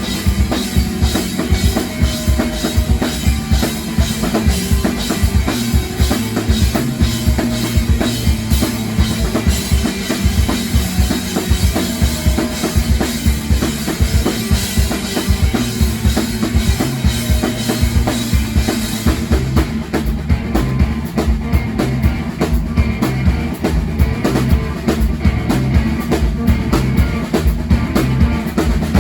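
Live rock band playing, led by a drum kit driving a fast, even beat of bass drum and snare over a held low bass note. The high cymbal wash drops out about two-thirds of the way through while the drums keep going.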